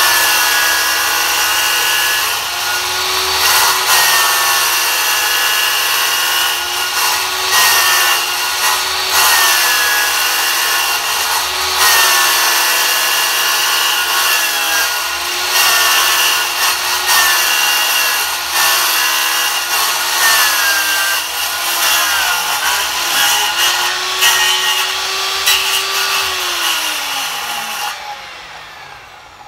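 A power saw cutting through a green ribbed plastic septic tank riser. The motor's pitch dips and recovers again and again as it works through the cut. Near the end the motor is switched off and winds down to a stop.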